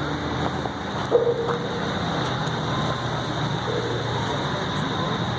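Heavy machine's engine idling steadily with a low hum, a thin high whine held above it.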